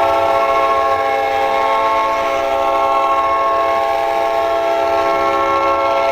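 Winnipeg Jets goal horn blowing: a loud, steady blast of several pitches sounding together, like a train horn, held without a break.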